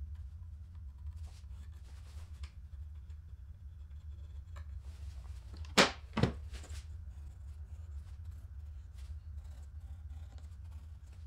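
A pencil scratches faintly on an MDF board, tracing and marking. In the middle come two sharp knocks about half a second apart on the wooden workbench, the loudest sounds. A low steady hum runs underneath.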